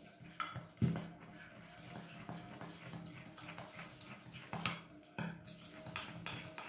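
Metal spoon stirring and scraping in a small glass bowl, with repeated clinks against the glass, as icing sugar is mixed with lemon juice into a glaze.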